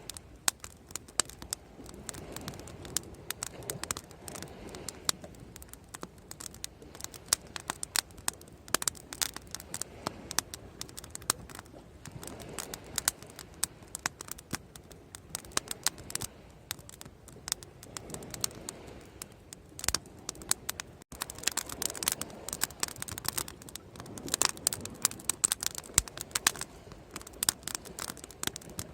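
Wood bonfire crackling and popping: dense, irregular sharp snaps over a soft background rush that swells and fades every few seconds.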